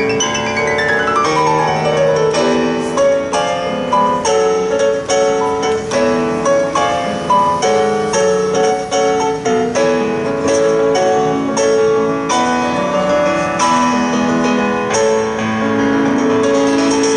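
Electronic keyboard played with a piano voice: a fast run sweeping down in pitch at the start, then a melody over steady held bass chords.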